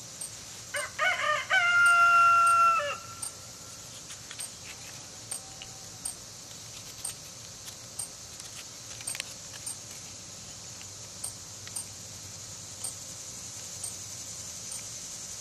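A rooster crows once, about a second in: a few short broken notes, then a long held final note that lasts about a second and a half. A steady high hiss with faint regular ticks runs underneath.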